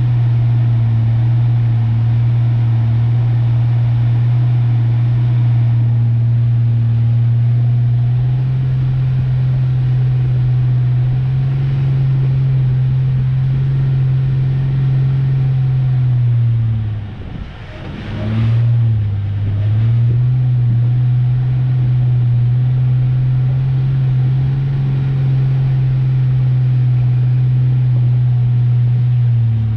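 1993 Ford Ranger pickup driving at a steady pace, its engine and drivetrain making a steady low drone. About 17 seconds in the drone sags and drops in pitch, with a brief sharp noise, then climbs back to a steady note.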